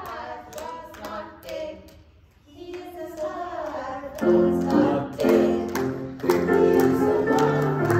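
A song with singing and instruments, which gets much louder about four seconds in, with a steady beat.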